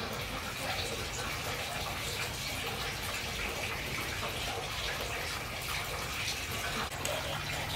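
Steady running water, flowing without a break.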